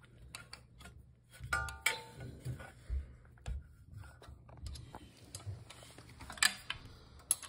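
Carburetor and engine parts being handled on a small motorcycle engine: scattered light metal clicks and taps, with a short squeak about one and a half seconds in and a couple of sharper clicks near the end.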